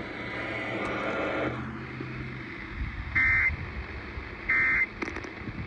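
Weather radio receiver sending the Emergency Alert System end-of-message data bursts: after a stretch of static, two short, harsh buzzing bursts about a second apart, the tones that mark the close of the alert.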